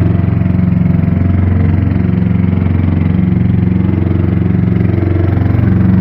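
A boat's engine running steadily while the boat is under way, a loud, even hum.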